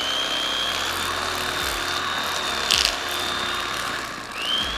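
Corded electric fillet knife running, its reciprocating blades buzzing with a steady high whine as they cut into a redfish behind the head. A brief louder rasp comes just under three seconds in.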